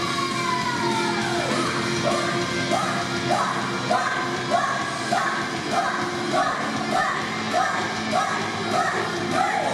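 A Japanese idol group performing a pop-rock song live over an amplified backing track, with singing and shouted vocal lines. Early on, a long held note slides down in pitch; it is followed by short, punchy vocal phrases at an even beat.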